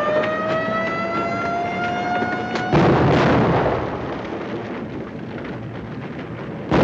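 Air-raid siren wailing and slowly rising in pitch, cut off a little under three seconds in by a loud bomb explosion whose rumble dies away over a couple of seconds; a second blast hits near the end. The sound of an air raid in progress.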